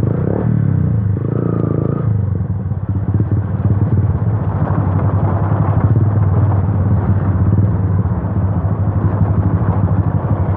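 Yamaha FZ V2's single-cylinder engine running under way through an aftermarket Akrapovic exhaust with its dB killer removed, giving a loud, open exhaust note.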